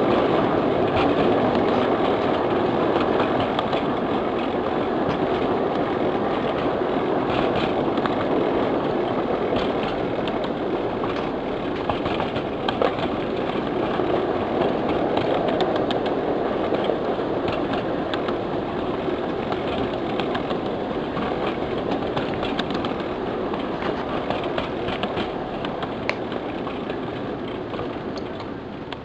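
1/8th-scale ridable train rolling along its track: a steady rumble of small steel wheels on rail with scattered clicks from the rail joints, easing off near the end as the train slows.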